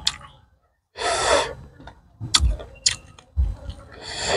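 Close-miked eating: a loud breath about a second in, then crisp crunching chews of raw vegetables a couple of times, and another breath near the end.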